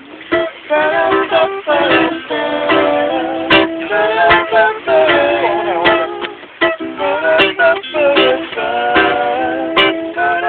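Instrumental break of a live acoustic jam: strummed plucked strings playing chords with sharp strokes, and a melody line whose notes bend in pitch, without singing.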